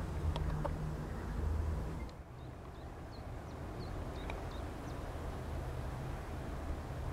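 Outdoor background: a steady low rumble that drops in level about two seconds in, with a few faint, short high chirps a second or two later.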